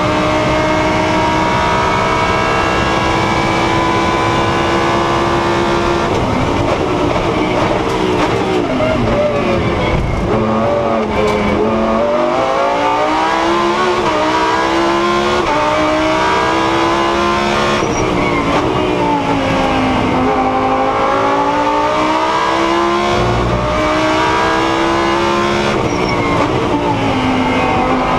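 Lamborghini Huracán Super Trofeo's 5.2-litre V10, heard from inside the cockpit, running flat out at a steady high pitch. About six seconds in the pitch drops as the car brakes and downshifts. After that the engine rises and falls several times as the car accelerates hard and brakes again through the corners.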